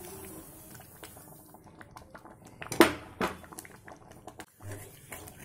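Granulated sugar poured into a pan of simmering grape paste, with a soft hiss as it pours. About three seconds in come two sharp knocks of kitchenware against the pan.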